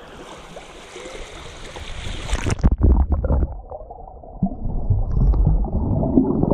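Rushing, splashing river water, then about two and a half seconds in the microphone goes under the surface and the sound turns suddenly muffled: a low underwater rumble with gurgling and thumps from the swimmer's movements.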